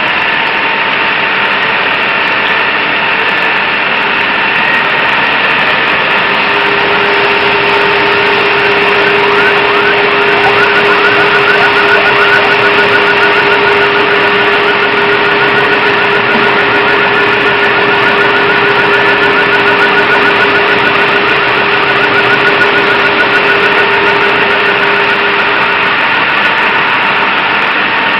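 Fire engine's motor running loudly and steadily, a constant drone with a steady hum. A lower steady tone joins about six seconds in and drops out a couple of seconds before the end.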